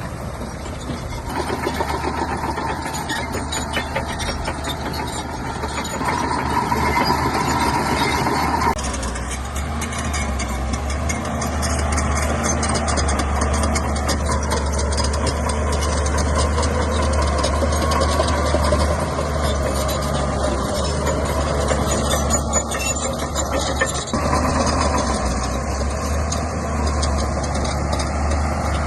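Shantui bulldozer's diesel engine running under load, a steady low drone, with a dense rattle of small knocks and clanks from the tracks and pushed stone. The engine's note shifts several times as the load changes.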